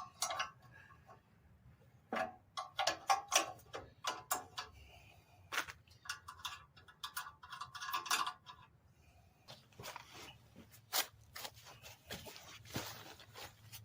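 Irregular sharp clicks and metallic clinks of hand tools and bolts being handled while working on a riding mower's exhaust.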